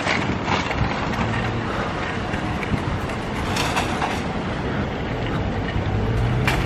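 Stroller wheels rolling over asphalt, a steady rumbling rattle with a few clicks.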